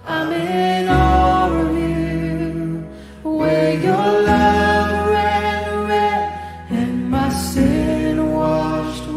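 Live worship song from a small band: a woman singing over electric keyboard, acoustic guitar and bass guitar. The sung lines come in phrases with short breaks between them, and the bass moves to a new held note every few seconds.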